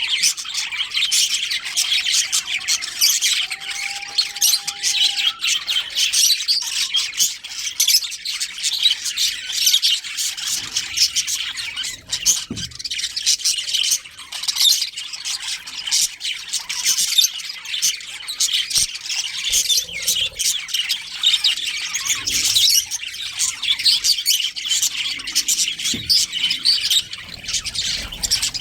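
A colony of budgerigars chattering: a dense, continuous mass of quick overlapping chirps and squawks.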